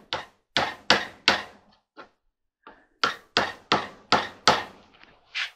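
A hammer tapping a chisel-type scraper in quick regular strikes, about two or three a second, driving it under old glued felt on a clothes dryer's drum bulkhead. The strikes come in two runs with a short break and a couple of light taps between them.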